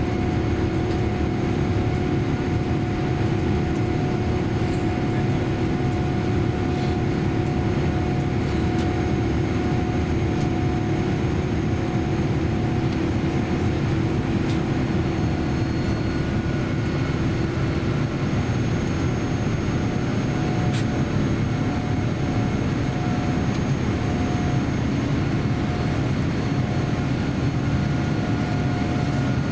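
Steady cabin roar inside a Boeing 787-10 airliner climbing after takeoff: engine and airflow noise. A low steady hum in the roar fades away about halfway through, while a thinner, higher tone carries on.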